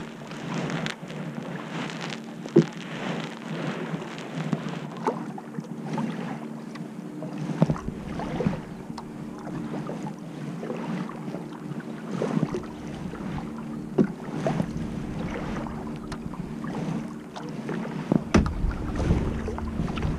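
Kayak paddle strokes, the blades dipping and splashing in calm water every second or two, over a steady low hum. Gusts of wind rumble on the microphone about a third of the way in and again near the end.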